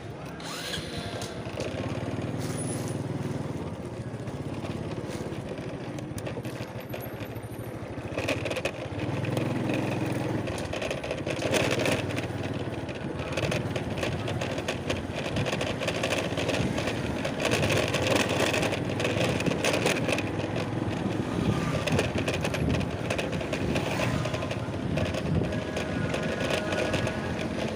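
Steady vehicle and road noise that gets louder about eight seconds in.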